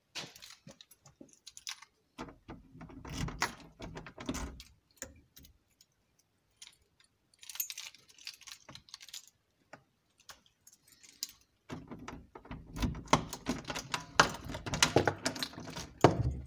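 Small metal objects clicking and jangling as they are handled, with rustling handling noise. The clatter comes in two busy stretches, one about two seconds in and one over the last few seconds, with scattered single clicks and quieter gaps between.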